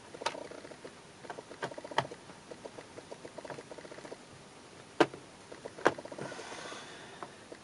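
Small hand screwdriver turning screws into a Sony Vaio laptop's base: faint scratchy ticking with several sharp clicks of the tip against the screw heads and case, the loudest about five seconds in.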